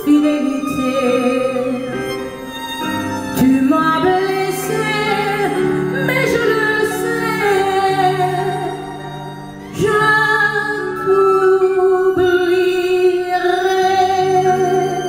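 A woman singing live into a microphone, holding long notes with vibrato, accompanied by piano and strings.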